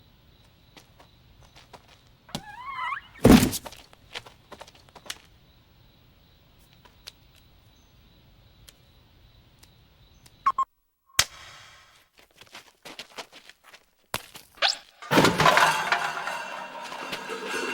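Animated-film sound effects: a short warbling squeak, then a heavy thud about three seconds in. Scattered small clicks follow, and a longer noisy crash starts near the end.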